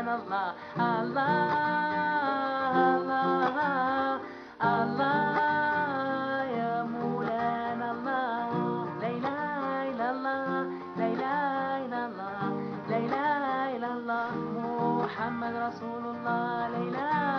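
A Gnawa- and Sufi-inspired Moroccan devotional song with strummed acoustic guitar and an ornamented sung melody. The music drops away briefly about four seconds in, then comes straight back.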